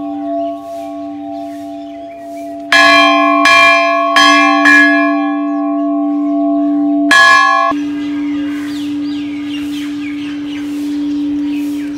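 A Hindu temple bell being rung: four strikes in quick succession from a little under three seconds in and a fifth about seven seconds in, its tone humming on steadily between and after the strikes.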